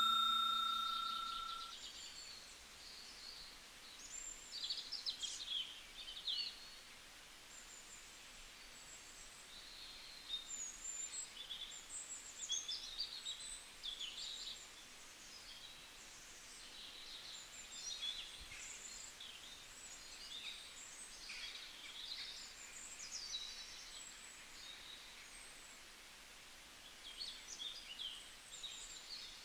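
Small birds chirping and twittering in short scattered bursts over a faint hiss. A bell-like chime fades away at the start.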